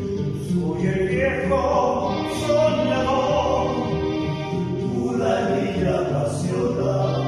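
Ecuadorian pasillo sung by a vocal trio, several voices singing together over the accompaniment.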